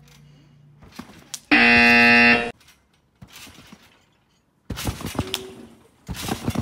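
A game-show style 'wrong' buzzer sound effect: a loud, harsh steady tone about a second long, the kind used to mark a missed trick. Later come the thumps and rustle of someone jumping and landing on a trampoline.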